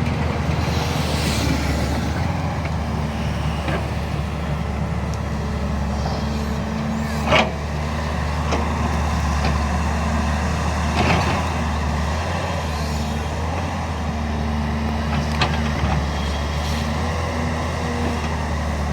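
JCB 205 excavator's diesel engine running steadily at work. A few sharp metallic knocks sound over it, the loudest about seven seconds in.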